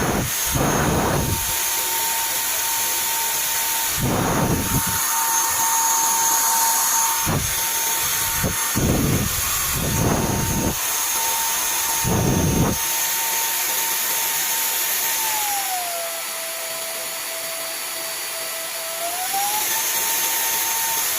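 Cordless stick vacuum cleaner's motor running with a steady high whine, not cutting out: its rebuilt lithium battery pack now holds up under load. Several short louder whooshes come in the first half, and about three-quarters through the whine glides down to a lower pitch for a few seconds before rising back.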